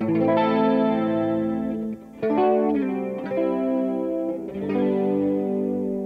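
Electric guitar played through a Boss GX-100 multi-effects processor: chords struck about four times and each left to ring.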